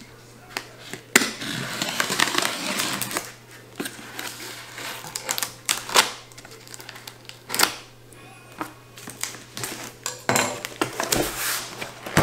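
Cardboard shipping box being opened by hand: packing tape ripped off in a long rasp about a second in, then cardboard rustling and scraping with scattered sharp clicks and taps as the box is handled.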